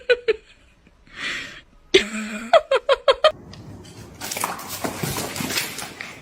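Squeaky dog-toy bone squeaking in short bursts as the dogs mouth it, with a quick run of about five squeaks two to three seconds in. A longer stretch of noisy rustling follows near the end.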